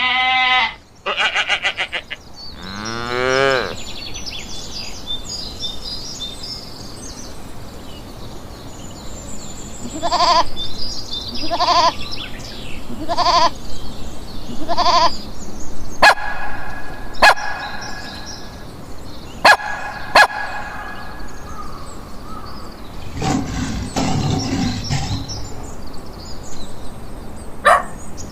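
Farm animals calling in turn, mostly goat or sheep bleats: a few calls at the start, one rising call, then four evenly spaced calls. Several short, sharp calls come later.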